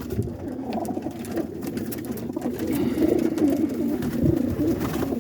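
A flock of roller pigeons cooing, with low, wavering coos overlapping one another.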